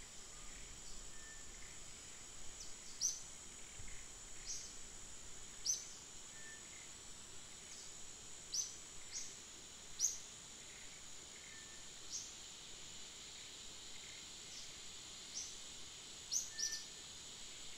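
Forest ambience: a steady high insect drone, with short, sharp bird chirps that fall in pitch, repeated irregularly about once a second.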